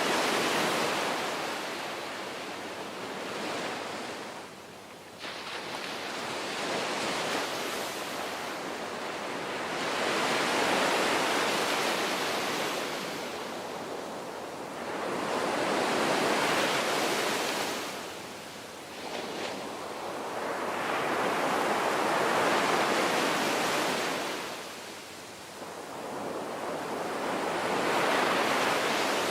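Ocean waves breaking and washing in, the surf swelling and fading every few seconds.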